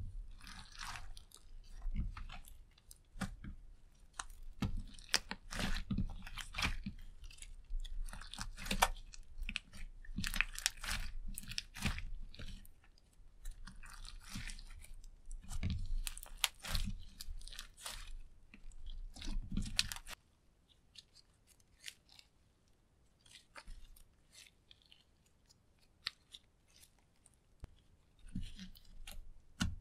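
Hands kneading and squeezing clear slime mixed with purple eyeshadow and glitter: dense, irregular sticky clicks and pops. About twenty seconds in the sounds drop off suddenly to a few faint, sparse clicks.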